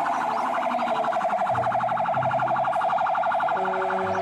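Fire truck's electronic siren wailing in a fast, even warble.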